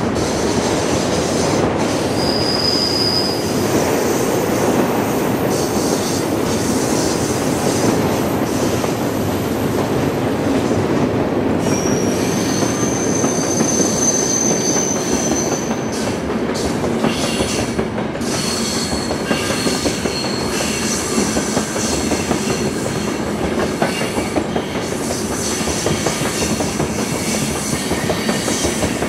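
Freight cars of a long train rolling past steadily, a continuous rumble of steel wheels on rail. High-pitched wheel squeals come and go, one held for several seconds about halfway through.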